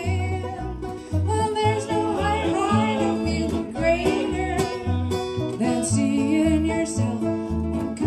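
Acoustic string band playing live: fiddle, upright bass, acoustic guitar and banjo, with the bass plucking a steady pulse of low notes under wavering sustained fiddle notes.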